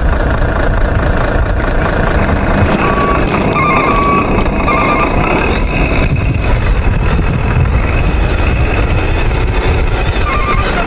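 Radio-controlled Hino 500 dump truck running, its motor and gears giving a steady rumble, with short runs of reversing beeps from about three to five seconds in and again near the end.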